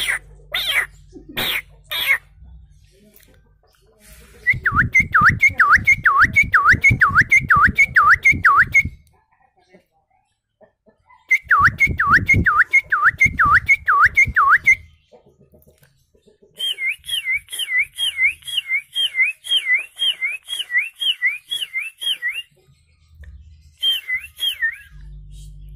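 A man whistling bird-call imitations by mouth, without any device: runs of repeated swooping notes, two or three a second, in several phrases with pauses between.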